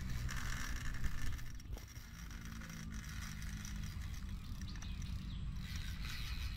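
Fishing reel being cranked while a hooked fish is played, in two short spells near the start and near the end, over a steady low rumble.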